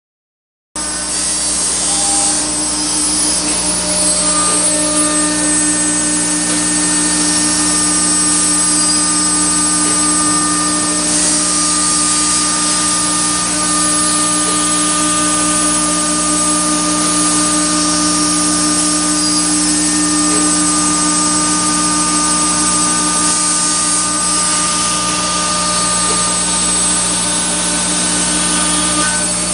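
CNC router running, its spindle giving a steady whine with several held tones over a loud hiss. It cuts in suddenly just under a second in and stays even throughout.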